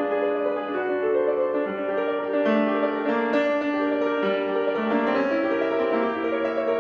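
A Steinway & Sons grand piano played solo, a continuous passage of overlapping, ringing notes with no break.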